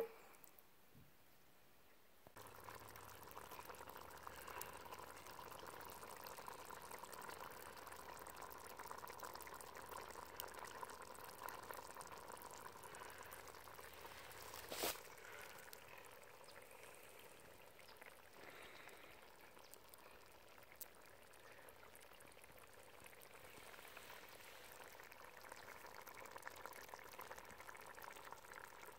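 Chili simmering in a cast iron Dutch oven: a faint, steady bubbling with many tiny pops. It starts after about two seconds. A single sharp click comes about halfway through, after which the bubbling goes on a little quieter.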